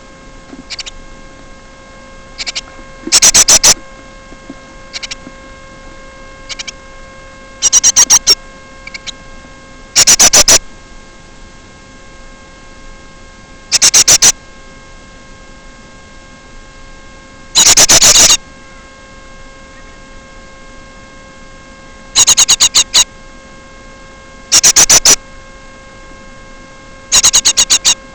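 Steady electrical mains hum, broken about nine times, every few seconds, by loud half-second bursts of rapid clicking or rattling that hit full scale.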